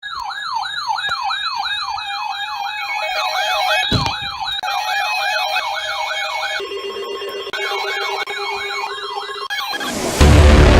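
Sirens sounding a fast yelp, several overlapping at different pitches and rates, each sweeping quickly up and down. A steady lower tone joins about two-thirds of the way in, and a loud burst of noise cuts in just before the end.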